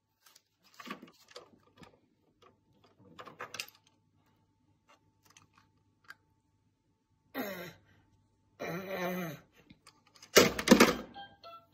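Light clicks and rattles of a baby handling plastic toys, then two short voice-like calls, the first falling in pitch, and a brief loud burst near the end, the loudest sound.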